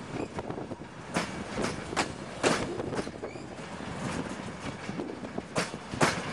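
Passenger railway coaches rolling past, their wheels clicking irregularly over joints in the track above a steady rumble.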